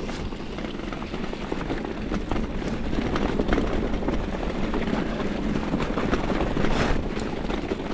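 Mountain bike with Maxxis Forekaster knobby tyres rolling over a soft, muddy, rutted forest track: a steady rumble with scattered small clicks and rattles, and a brief hiss near the end.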